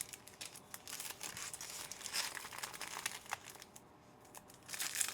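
Crinkling and tearing of Panini Certified Football trading-card packaging being ripped open by hand. It dips for a moment about four seconds in, then picks up louder near the end.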